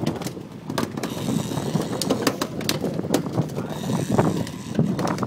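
Fishing reel being wound in on a rod, its gears and ratchet giving quick, irregular clicks.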